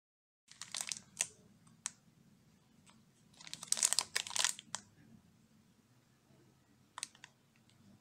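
Plastic candy wrapper crinkling in the fingers in short bursts, heaviest about four seconds in, as the packet is picked up and turned over.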